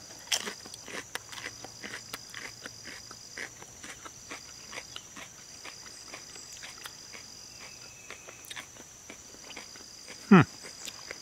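Insects droning steadily in the garden, two even high-pitched tones that run on, under scattered small clicks. About ten seconds in, a single short, loud sound falls sharply in pitch.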